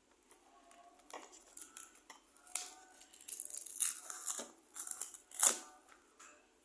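Irregular crackling and rustling with sharp clicks, like something being handled or crumpled, loudest about five and a half seconds in, over faint music.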